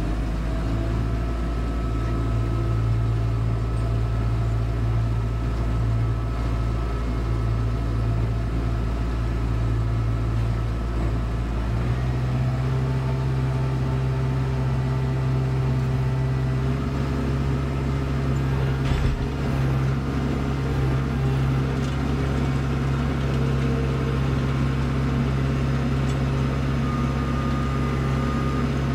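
Kubota Grand L4760 tractor's diesel engine running steadily under load with its front snowblower, heard from inside the cab; the engine note changes about twelve seconds in, and there is a short knock about nineteen seconds in.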